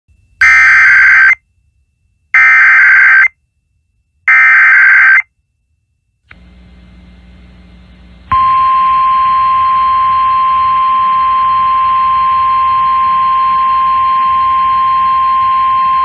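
Emergency Alert System weather warning: three short bursts of digital header data screech out, each about a second long with a second's gap between them. After a click and a faint hiss of radio static, the long, steady single-pitched weather-radio alarm tone starts about eight seconds in.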